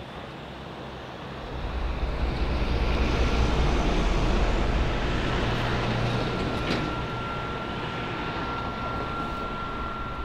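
Street traffic rumble that swells after a second or so and then eases off. A thin steady high tone comes in about six seconds in and holds, with one brief click shortly after.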